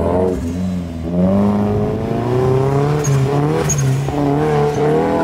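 Mazdaspeed3's turbocharged 2.3-litre four-cylinder accelerating hard on an autocross run. The revs climb and drop several times.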